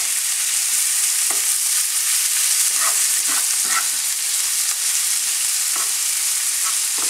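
Sliced chorizo and diced garlic sizzling in olive oil and the sausage's own rendered fat in a frying pan, with a slotted spatula scraping and turning the slices now and then.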